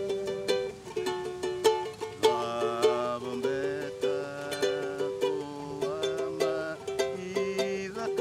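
Ukulele strummed in a steady rhythm, changing chords, with a low bass line underneath.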